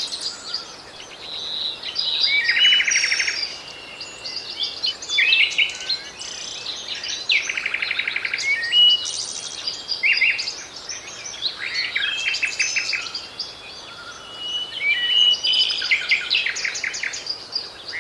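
Several songbirds singing over one another: a continuous mix of chirps and whistled phrases, with fast trills of rapidly repeated notes coming every few seconds.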